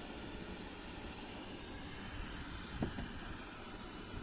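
Steady background hiss with a faint single tap about three seconds in.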